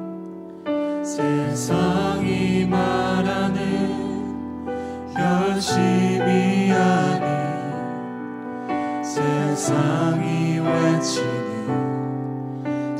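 A worship team singing a Korean praise song, several voices together with microphones, over acoustic guitar and keyboard accompaniment, in sustained sung phrases.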